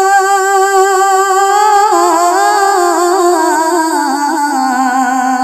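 A boy's voice singing a Bengali Islamic gazal, drawing out a syllable as one long held note, then winding down through a wavering melodic run to a lower note held near the end.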